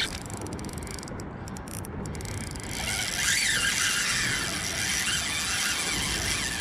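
Shimano Sahara 2500 spinning reel being cranked against a fish on the line. The reel squeals in repeated rising and falling sweeps from about three seconds in, after a quieter, ticking start.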